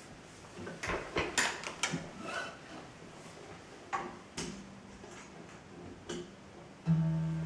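Knocks and clatter as a Martin D-35 acoustic guitar is handled and set into a floor stand. Near the end the guitar's low strings ring out suddenly as it settles into the stand, then slowly fade.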